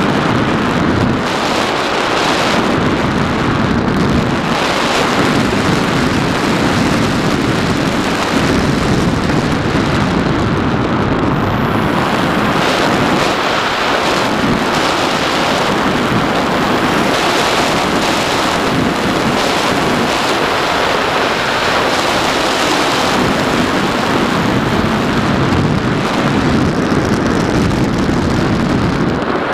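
Steady, loud rush of wind buffeting the microphone of a camera mounted on the nose of an RC foam model plane in flight. A faint thin high whine runs through the middle.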